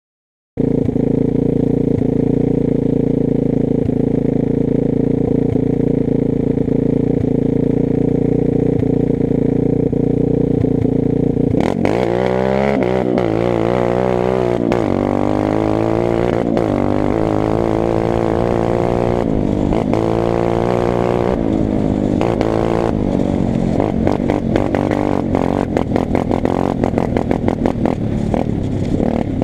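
Xmotos XB31 250cc pit bike engine idling steadily, then revving up and down over and over from partway through, running choppy and uneven near the end.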